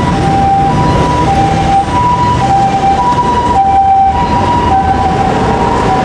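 Japanese ambulance siren in its two-tone hi-lo pattern, a higher and a lower tone alternating about every half second, over street traffic.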